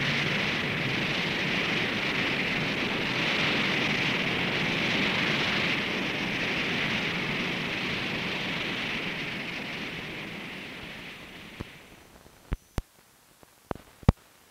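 Rocket plane's engine noise, a steady even rush, fading out about eleven seconds in. A few sharp clicks and pops of old film soundtrack follow.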